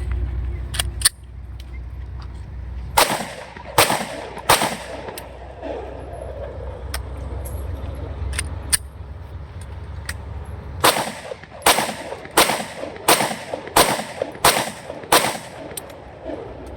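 Ten 9mm pistol shots from a locally made Glock 26 copy: three shots close together, a pause of several seconds, then seven more at a steady pace of a little over one a second.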